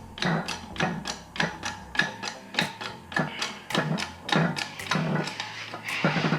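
Ratchet wrench clicking in quick, even strokes, about three to four clicks a second, driving a new bearing into a dirt bike's shock linkage.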